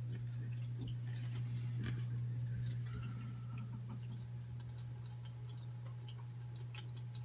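Aquarium filter running in a turtle tank: water trickling and dripping at the surface over a steady low hum.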